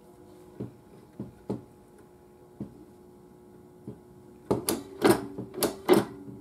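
Restored Philco tube radio switched on, its speaker giving a faint steady hum with scattered clicks, then a run of loud crackling bursts from about halfway through as the tuning is worked toward a station.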